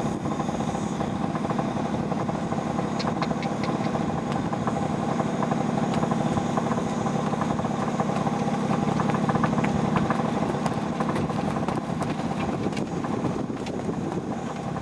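Motorcycle engine idling steadily, with scattered light clicks over it.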